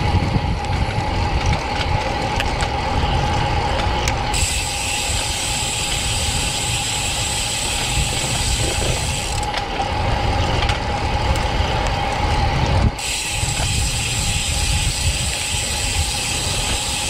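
Wind rushing over a GoPro's microphone and tyre noise as a road bicycle rolls along a concrete street. A freehub ratchets in two stretches, from about four to nine and a half seconds in and again from about eleven to thirteen seconds, as the rider coasts.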